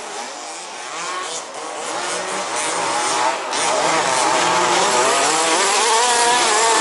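Several 1/5-scale petrol RC buggy engines buzzing and revving, their pitch rising and falling, growing louder over the first few seconds as the buggies race past.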